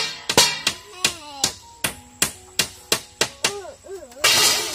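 Knife chopping food, quick uneven strokes about three to four a second, with a short burst of hiss near the end.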